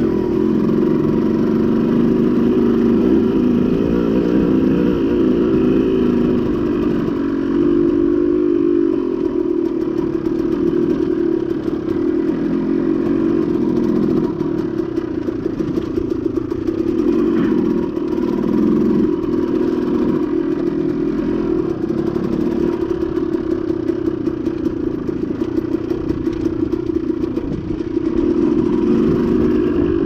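KTM two-stroke dirt bike engine running under way on a rough dirt trail, its note rising and falling as the throttle is worked, with the bike clattering over the ground.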